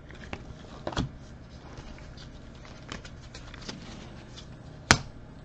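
Trading cards being flipped and shuffled by gloved hands: soft paper flicks and rustles, with a sharp card tap about five seconds in, the loudest sound.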